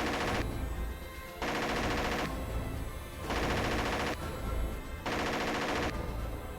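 Bursts of simulated machine-gun fire, three of them, each under a second long and about two seconds apart, over background music.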